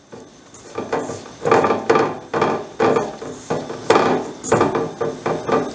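A hand pressing and tossing a piece of buttermilk-soaked chicken in flour in a stainless steel bowl: a rhythmic run of rubbing thuds against the bowl, about two a second.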